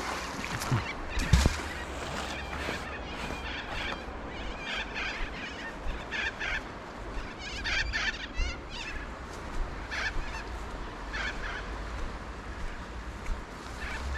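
Birds calling repeatedly in short, high calls every second or two, over a low steady rumble. A sharp thump comes about a second and a half in.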